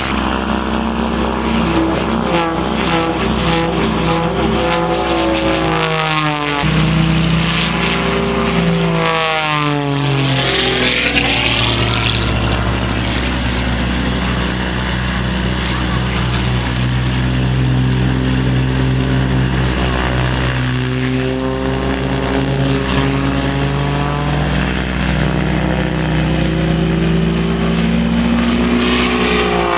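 Edge 540 aerobatic plane's six-cylinder Lycoming piston engine and propeller at full display power, a loud continuous drone whose pitch shifts several times as the plane manoeuvres, most sharply about six seconds in, with sweeping pitch changes around ten seconds in and again near the end as it passes.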